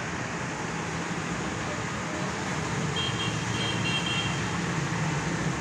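Steady outdoor wash of rain and road traffic noise, with a few short high beeps or chirps a little past halfway.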